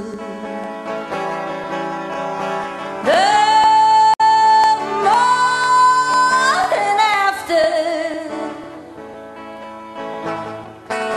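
A song with a singer holding long notes over instrumental backing. The held note steps up in pitch about five seconds in.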